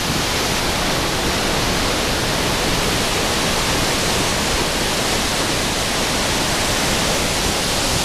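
Large, high-volume waterfall plunging into its pool: a loud, steady, unbroken rush of water.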